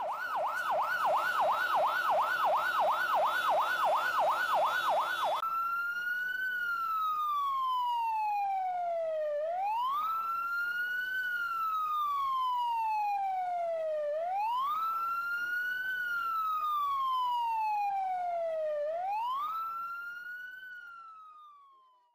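Electronic siren sounding a fast yelp, about three rises and falls a second, then switching a few seconds in to a slow wail that climbs quickly and falls slowly, about once every five seconds. It fades out near the end.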